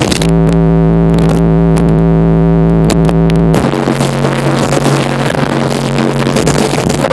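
Live electronic music recorded on an overloaded phone microphone, with heavily distorted, booming bass. For about the first three and a half seconds a held synth chord sits over the bass, then the full beat comes back in.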